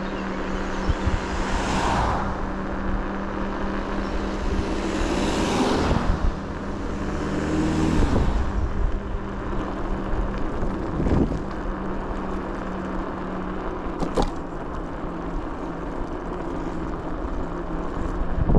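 A motor vehicle's engine running at a steady pitch, with a rushing noise swelling and fading over it three times in the first half, and a single sharp click about fourteen seconds in.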